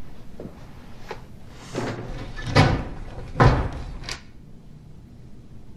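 A wooden apartment door being shut, heard as a series of short knocks and dull thuds, the two loudest about a second apart in the middle.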